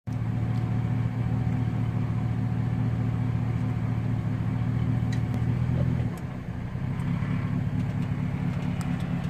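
Truck engine running at low speed, a steady low hum that drops and changes about six seconds in as the truck begins to creep forward, with a few faint clicks.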